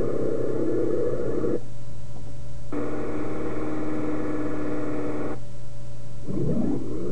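Electronic sound effects over a constant low hum: two sustained buzzy tones, each about two and a half seconds long with a short gap between, then a brief warbling sweep near the end.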